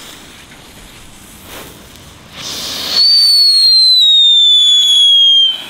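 A ground firework hissing softly, then a loud, piercing whistle that starts about three seconds in and slides slowly down in pitch for about two and a half seconds before cutting off abruptly.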